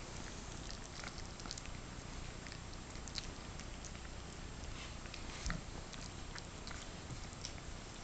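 Small wet clicks and smacks scattered throughout as a Yorkshire Terrier mother licks and nuzzles her young puppies, with a single soft thump about five and a half seconds in.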